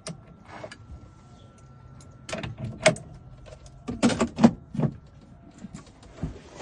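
A series of sharp clicks and knocks from a key blank being set up in a key-cutting machine, bunched about two to three and four to five seconds in.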